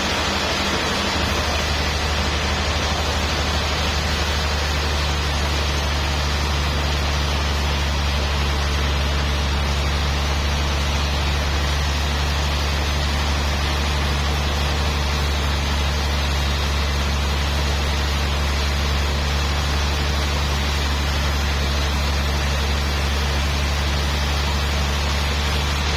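A machine running steadily: a constant low hum under a loud even hiss, the hum growing stronger about a second in.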